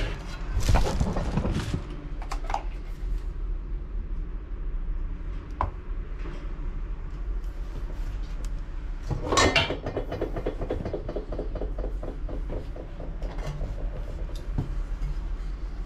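Handling noise from a carbon handlebar and its packaging being moved about: rustling and clattering in two louder bursts, about a second in and about nine seconds in. The second burst turns into a quick run of clicks. A steady low hum runs underneath.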